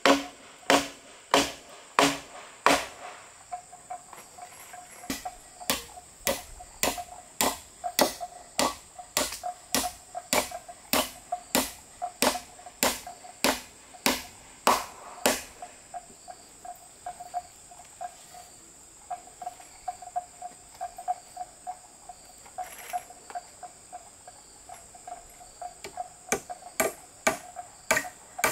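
A hand tool striking over and over at about two blows a second; the blows turn faint and sparse for about ten seconds past the middle, then come strong again near the end. A steady high shrill of insects carries on throughout.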